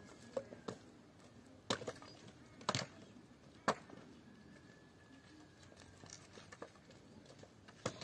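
Three sharp knocks about a second apart, with a few fainter clicks, over quiet background.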